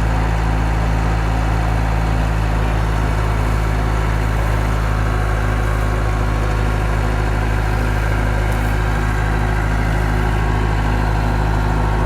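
Skid steer engine idling steadily.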